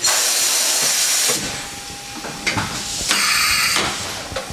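Two bursts of hissing spray from a hand-held coolant spray nozzle aimed at the CNC mill's work, a long one at the start and a shorter, fluttering one about three seconds in. A faint steady whine from the running mill sounds in between.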